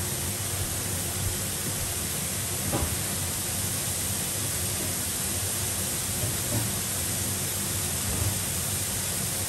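Mushrooms frying in a pan over a gas flame: a steady sizzling hiss with a few faint crackles.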